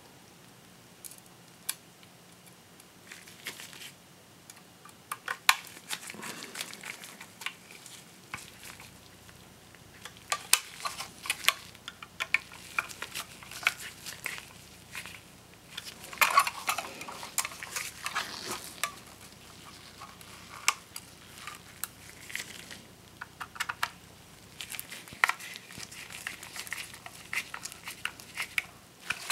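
Small metallic clicks, ticks and scrapes as a small Phillips screwdriver drives screws into the metal drive caddy around a 2.5-inch SSD, with the caddy and drive being handled. The clicks come irregularly, bunching up about ten seconds in and again a little past halfway.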